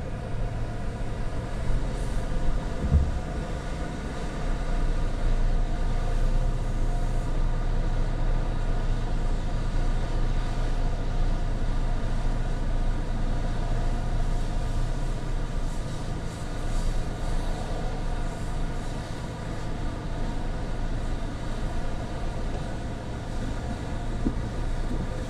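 Car engine idling with a steady low hum, heard from inside the cabin.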